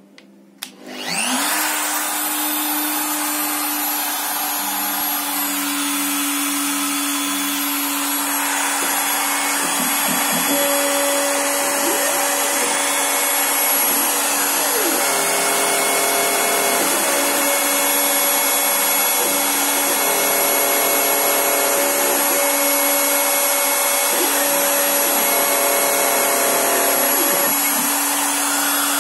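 Rotary-tool spindle of a desktop CNC engraver spinning up about a second in and then running at a steady high whine while it engraves a logo into a plastic part. From about ten seconds in, the machine's axis stepper motors add tones that start, stop and glide as the head moves.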